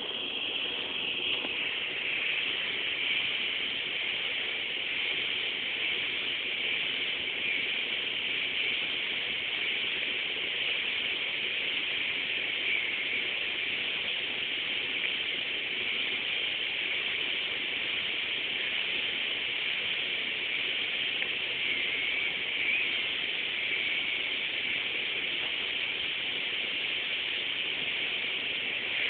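Steady hiss with a faint low hum underneath, unchanging throughout.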